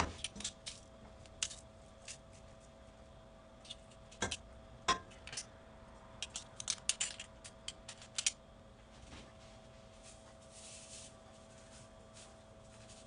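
Sharp metallic clicks and taps of a kitchen utensil against a stainless steel pot, in irregular clusters for the first eight seconds or so. About ten seconds in comes a short soft hiss of salt poured into the pot. A faint steady hum runs underneath.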